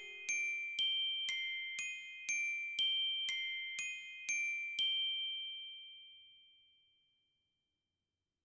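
The end of a homemade electronic song: high, bell-like mallet-instrument notes struck about twice a second in a short repeating figure. The last note, about five seconds in, rings on and fades away.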